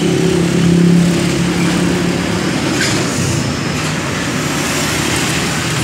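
Single-cylinder four-stroke petrol engine (Matsumoto MGX 100) of a 1.5-inch mini portable water pump, running steadily.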